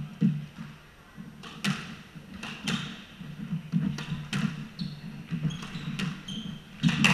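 Squash rally: the ball cracking off rackets and the court walls every half second or so from about a second and a half in, with sneakers squeaking on the wooden floor and dull footfalls as the players run.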